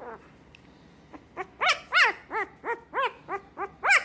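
A dog barking in a quick run of short, high yips, about four a second, each rising and falling in pitch, starting a little over a second in.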